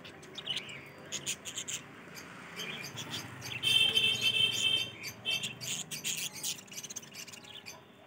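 A flock of caged budgerigars chattering: many quick high chirps and squeaks, with a louder buzzy call about four seconds in.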